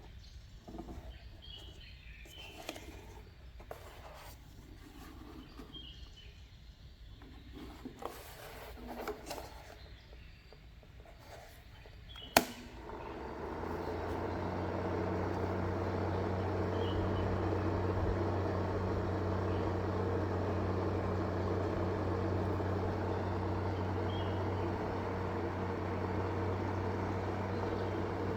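Light handling taps and knocks, then a sharp click about twelve seconds in. Soon after, a small battery-powered motor driving a homemade fan starts up and runs with a steady hum and a rush of air.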